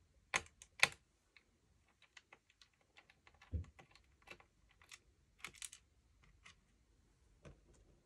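Scattered small clicks and taps of a precision screwdriver and screws on a laptop's plastic base cover as the cover screws are undone, with two sharper clicks about half a second in and a duller knock about three and a half seconds in.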